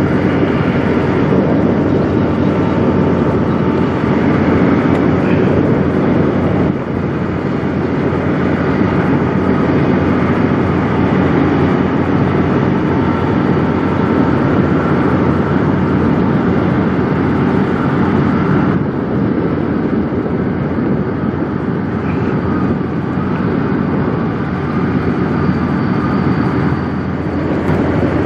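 Kenworth semi truck's diesel engine running steadily at low speed.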